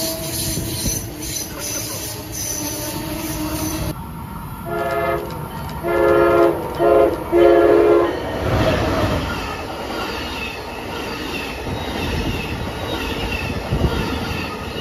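Amtrak Acela trainset sounding its chord horn in four blasts, the third one short, then rushing past at speed with wheel and wind noise. Before that, a steady whine and squeal from an Amtrak train pulling away.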